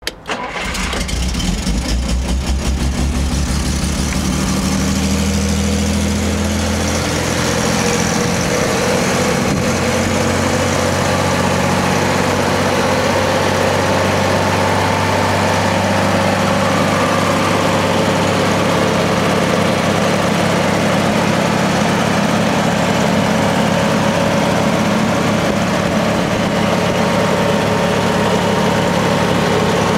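Vanden Plas Princess 4-Litre R's Rolls-Royce 3.9-litre straight-six being started: a brief crank, then the engine catches and runs at a raised idle that drops to a lower, steady idle after about seven seconds.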